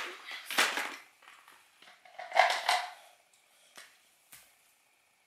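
Short handling noises: a rustle at the start and another about two seconds in, then two faint clicks.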